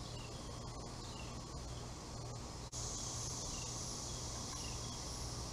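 Outdoor insect chorus with a steady low hum under it and small chirps every second or so; a little over halfway, after a momentary dropout, a steady high insect buzz comes in.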